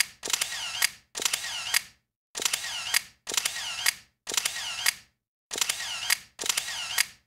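Camera shutter and motor-drive film-wind sound effect repeated about eight times: each burst is a click followed by a short whirr, in groups of three with brief pauses between.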